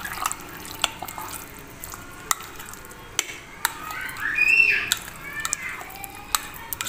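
A spoon stirring thick custard and cream with fruit cocktail and jelly cubes in a glass bowl: soft squelching with scattered light clicks of the spoon against the glass. About halfway through, a short high squeaky sound rising and falling in pitch is the loudest thing.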